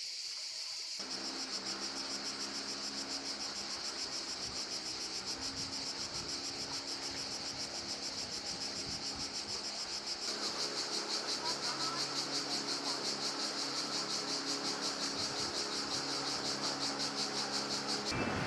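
A chorus of insects shrilling in a fast, even pulse, growing louder about ten seconds in, over a steady low engine-like hum.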